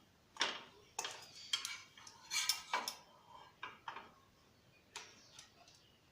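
Metal spatula and cookware knocking and clinking against a pan: a cooked crêpe being lifted off. Irregular sharp clicks, several closely bunched about two and a half seconds in.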